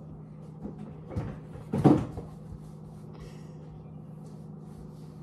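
Kitchen cupboard door banging shut, a light knock followed by a louder one about two seconds in, over a steady low hum.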